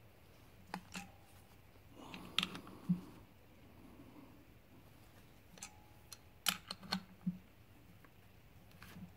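Adjustable wrench turning a 3/8-16 thread tap by hand in a hole in a 5.3 V8 engine block's lifter valley: scattered light metallic clicks and clinks in small clusters, a couple ringing briefly.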